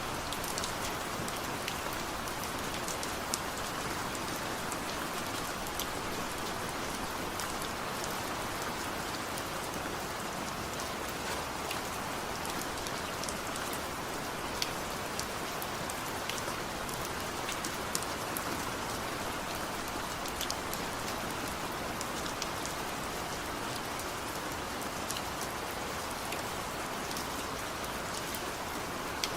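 Steady gentle rain with no thunder, an even hiss with scattered individual drops ticking sharply on a surface.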